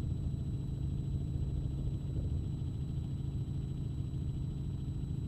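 Steady low rumble of a helicopter heard from inside its cabin, with a faint, high-pitched steady tone over it.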